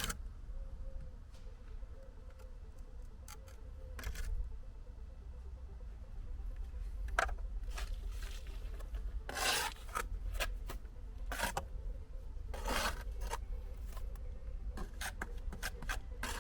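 Steel brick trowel scraping and spreading mortar on concrete blocks: several short, separate scrapes a second or more apart, over a steady low hum.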